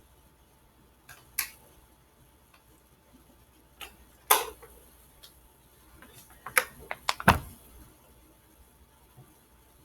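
Scattered clicks and knocks of small objects being handled: a few single clicks, a louder knock about four seconds in, then a quick run of half a dozen clicks and knocks near the middle, the last one deeper.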